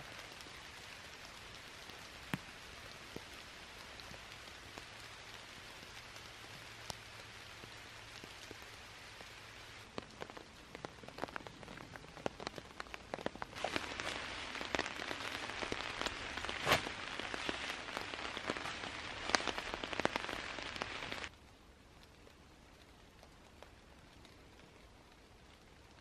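Steady rain with scattered individual drops pattering. A little past halfway it turns louder and denser for several seconds, then drops suddenly to a fainter hiss.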